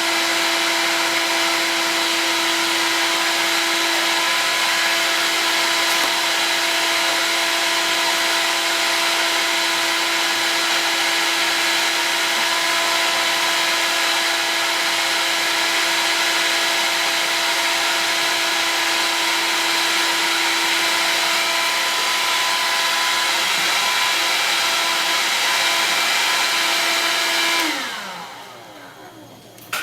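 Heat gun blowing steadily while heating an acrylic tube for bending. Near the end it is switched off and its fan winds down with a falling pitch.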